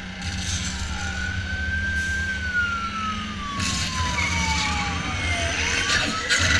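Ride sound effects over a constant low rumble: a single tone rises slightly, then slides slowly down over about three seconds. Bursts of noise come about four seconds in and near the end.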